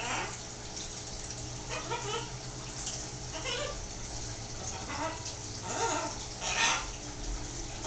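Green-winged macaw babbling: about six short, separate chattering calls, the loudest about two-thirds of the way through.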